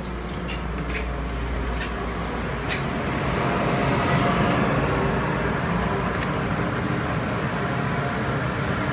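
Taiwan Railways EMU500-series electric multiple unit standing at the platform with its doors open, its equipment giving a steady hum over station ambience, louder about three seconds in.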